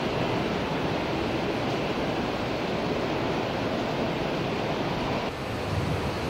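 Steady, even noise of a large indoor exhibition hall, with no single sound standing out; it dips briefly about five seconds in.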